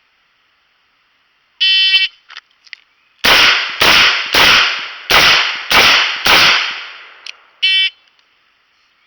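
Electronic shot timer beeps to start. About a second and a half later, a Taurus 856 snub-nosed .38 Special revolver fires six shots, roughly 0.6 s apart, each ringing out. A second beep from the timer marks the six-second par time.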